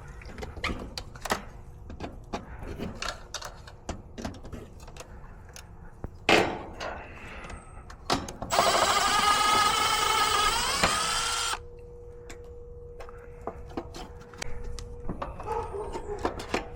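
Scattered clicks and knocks of tools and parts being handled, then a power drill runs for about three seconds past the middle, its pitch rising just before it stops suddenly.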